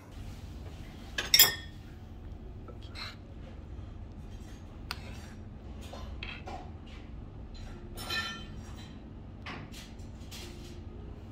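Metal spoon clinking against a pot of stew and tableware in scattered taps, the loudest a little over a second in, over a low steady background hum.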